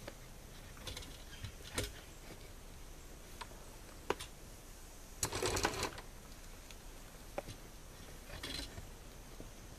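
Tree Lounge climbing tree stand being worked up a tree trunk: scattered faint clicks and knocks of the stand against the trunk, with a louder scraping rustle about five seconds in and a smaller one near the end.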